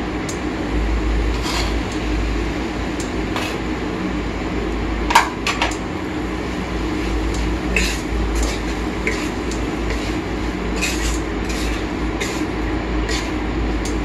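Wooden spatula stirring paneer bhurji in a metal kadai, scraping and knocking against the pan in scattered clicks, the sharpest knock about five seconds in, over a steady low hum.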